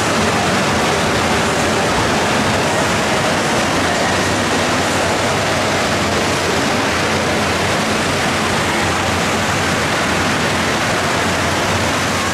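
Steady rushing of water in an indoor water park hall, from water running down the slides and into the pools, an even hiss and rumble that does not let up.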